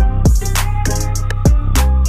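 Background hip hop music with a steady drum beat and heavy bass.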